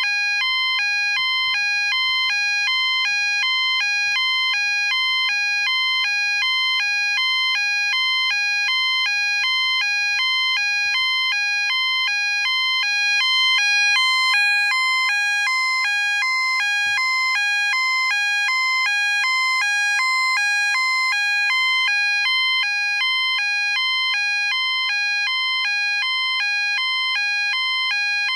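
EMS fire alarm sounder going off: a loud two-tone alarm that alternates steadily and rapidly between a lower and a higher pitch without a break.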